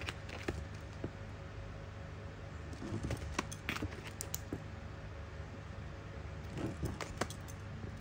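Handling noise from boxed lighters in plastic sleeves: scattered light clicks and rustles, bunched about three seconds in and again near the end, over a low steady hum.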